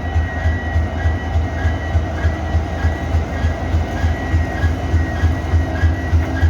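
WDG4 diesel locomotive's 16-cylinder EMD 710 two-stroke engine running, with a heavy low pulsing about three to four times a second and a steady high whine over it.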